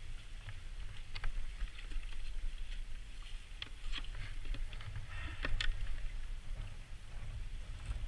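Low wind rumble on the microphone, with scattered light clicks and rustles as a seagull is held and handled in a plastic kayak; the loudest rustling comes about five and a half seconds in.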